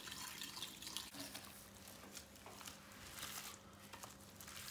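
Faint wet swishing and squishing of gloved fingers stirring an olive-oil and yogurt-whey marinade in a glass dish, then pressing a flattened beef tenderloin into it.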